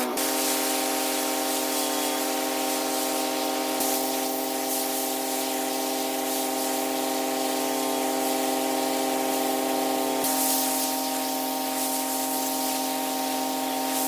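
Pressure washer spraying water: a steady hiss of spray over the machine's steady drone.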